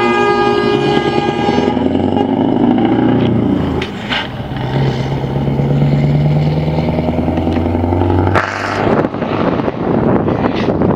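Scania R620's 16-litre V8 truck engine pulling away. An air horn blast with several tones stops about two seconds in, then the engine drones with a steady low note. About eight seconds in, that note gives way to a rough, noisy rumble with wind on the microphone.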